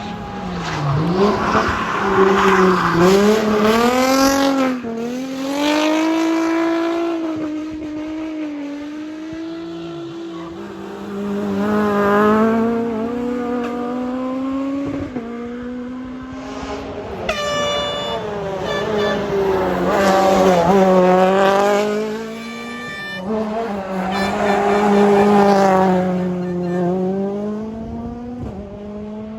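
Rally car engine revving hard and lifting off, its pitch rising and falling again and again as it goes through the gears. It gets loudest several times as cars come past.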